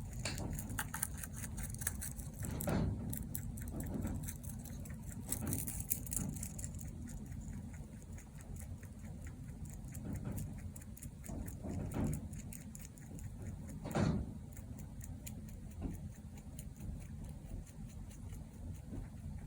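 Mini Rex rabbit snoring: soft snuffling breaths swelling every second or two, with faint clicks in between, over a low steady rumble.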